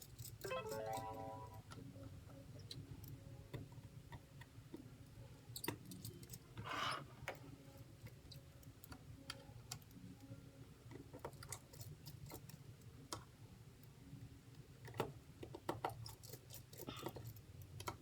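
Scattered light metallic clicks and taps of a precision screwdriver and tiny screws on a phone's display frame, over a low steady hum. There is a brief squeak about half a second in and a short scrape about seven seconds in.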